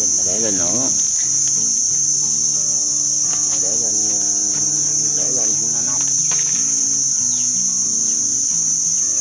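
A loud, steady, high-pitched insect chorus, with quieter music and a wavering singing voice beneath it.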